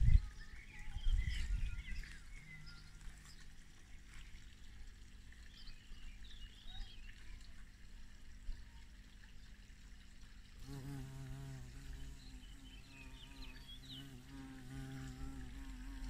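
Carpenter bee (Xylocopa fenestrata) buzzing in flight around its nest holes in dead wood: a low hum, faint a few seconds in, then louder and wavering from about ten seconds in.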